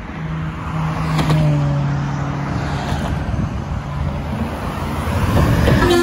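Highway traffic passing close: engines and tyre noise, with a low engine hum whose note drops about a second in as a vehicle goes by. A Mercedes-Benz coach's engine grows louder as it draws alongside near the end.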